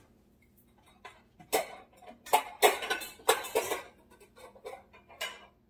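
Dishes clattering and knocking together as a baking dish is pulled out of a lower kitchen cabinet: a quick run of sharp knocks from about a second and a half in, with one more near the end.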